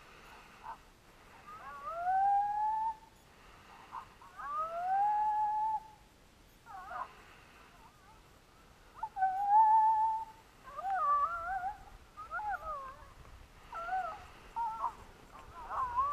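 Coyote howls and yips: several rising howls that level off and are held for about a second, then from about eleven seconds in a run of quick, wavering up-and-down yips, at times two pitches at once.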